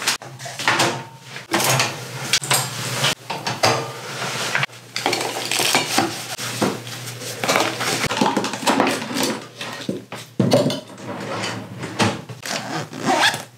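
Toiletry bottles and containers clattering and knocking against each other and the counter as they are packed into bags, a busy run of short knocks and rattles.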